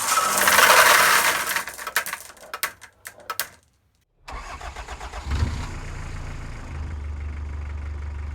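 Marbles rolling and clattering down a wooden marble-run track, the clicks thinning out before stopping about three and a half seconds in. After a brief silence, a steady low engine-like hum starts and runs on.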